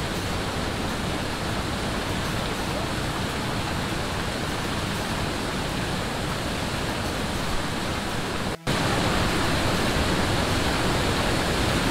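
Waterfall pouring over a stone wall, a steady heavy rush of falling and splashing water. It cuts out for an instant about two-thirds of the way through and comes back a little louder.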